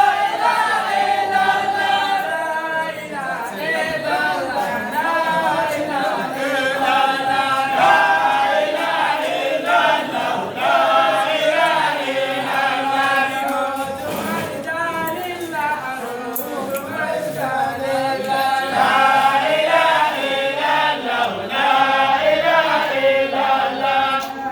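A group of voices singing an unaccompanied religious praise chant together.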